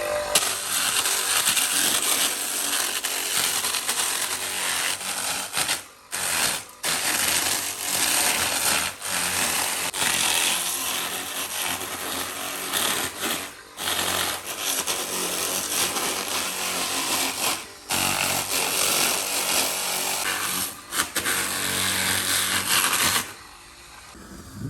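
Handheld power tool working wood, running in long loud stretches with a few brief breaks and cutting off shortly before the end.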